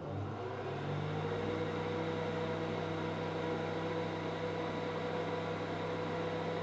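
Oster blender motor running at low speed, blending a smoothie in a glass mason jar: a steady hum that rises slightly in pitch in the first second as the motor comes up to speed, then holds steady.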